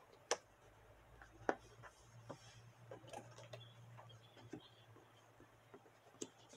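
Jigsaw puzzle pieces being picked up and pressed into place on a tabletop: scattered light clicks and taps, two sharper ones within the first two seconds, over a faint low hum.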